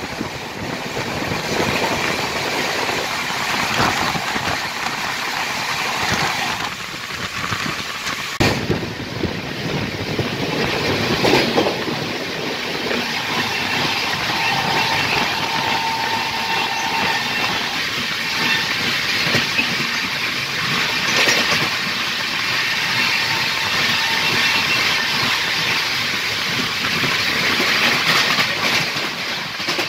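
Two trains passing each other on adjacent tracks, heard from the open doorway of one of them: a steady rolling rush of wheels on rail, with clickety-clack and a few sharp knocks. The passing train is first passenger coaches and then a long rake of loaded open freight wagons.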